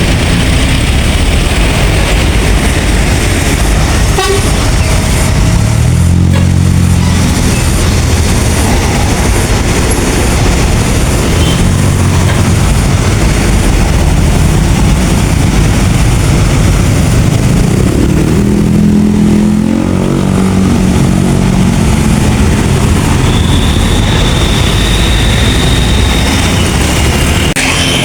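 Large diesel buses passing with steady engine and road noise. A bus's deep basuri air horn sounds in low notes about six seconds in, and again in a short run of stepped notes around eighteen to twenty-one seconds. A thin high steady tone lasts about three seconds near the end.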